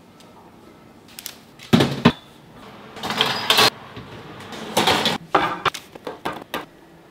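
Kitchen handling sounds: a loud double knock, short rushing noises, then a string of sharp clicks and knocks as an oven door is worked and baked puff pastry cases are set on a metal wire rack.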